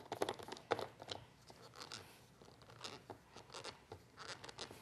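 Faint, scattered clicks and scrapes of plastic as the blade lid is twisted onto a small blender cup full of fruit and yogurt.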